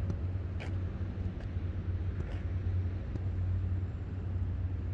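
Steady low mechanical hum, with a few faint ticks over it.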